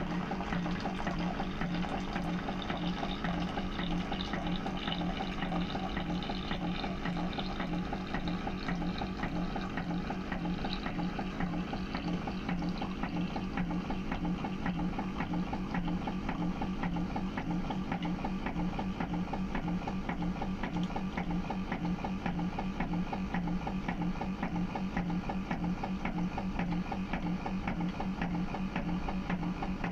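Keurig 2.0 single-serve coffee maker brewing. Its water pump hums steadily while the brewed coffee streams into the cup.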